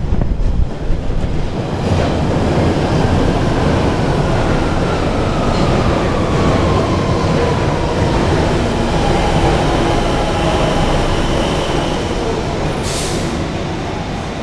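London Underground 1992 Stock tube train running into the platform from the tunnel and slowing to a stop. Its wheels rumble on the rails under a single whine that falls steadily in pitch as it brakes, and a short hiss comes near the end.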